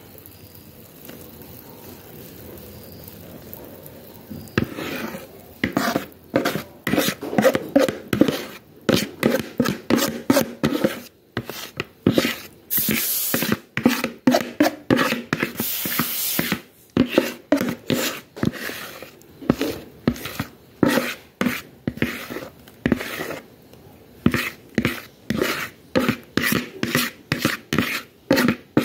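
A kitchen utensil scraping cake batter out of a plastic mixing bowl into a cake tin: repeated rasping scrapes, about two a second, starting a few seconds in, with a couple of longer scrapes midway.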